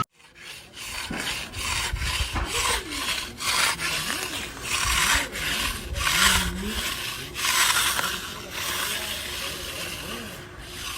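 Repeated rough scraping strokes, irregular, about one or two a second.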